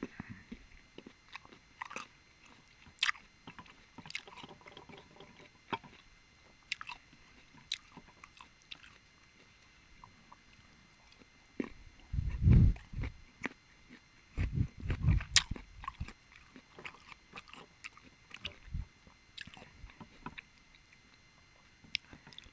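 Close-miked eating sounds of someone eating balut: wet chewing and many small clicks and smacks, with two louder low thuds in the second half.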